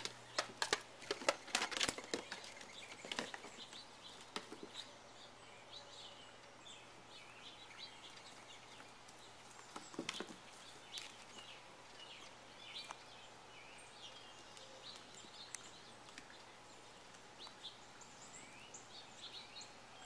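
Faint birds chirping over steady outdoor background noise, with a cluster of sharp knocks and clicks in the first few seconds.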